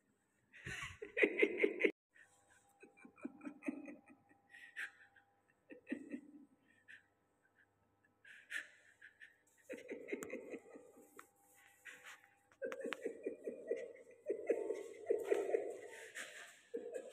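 A person laughing and chuckling in repeated short bursts, loudest about a second in and again through the second half.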